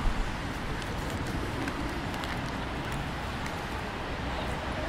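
Steady outdoor city-square ambience: a low wash of distant traffic and street noise, with a brief thump right at the start.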